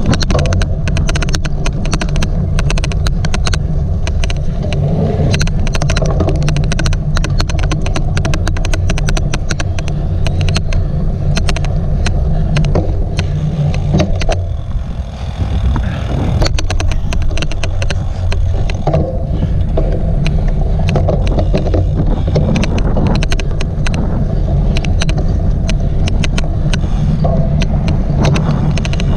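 Riding noise from a cyclocross bike: a heavy rumble of wind and tyres on the microphone, shot through with frequent, irregular sharp clicks, the odd clicking noise. It eases briefly about halfway through.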